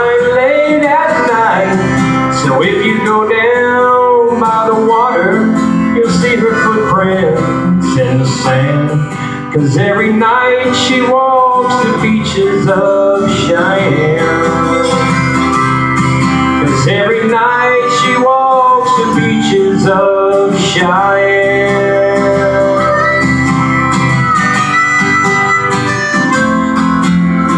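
Country song performed live: a man singing to his own strummed acoustic guitar, with the guitar carrying on alone in the last few seconds.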